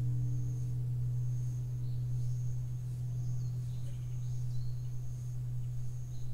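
Large Japanese Buddhist temple bell (bonsho) humming as its ring dies away after a strike: a deep steady hum, slowly fading, with two higher overtones that fade out in the first second or so. Over it a high chirp repeats about once a second, with an odd short call now and then.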